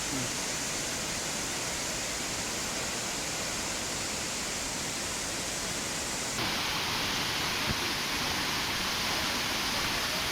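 Steady rushing of the Agaya Gangai waterfall, a constant hiss of falling water. About six seconds in it turns slightly louder and brighter.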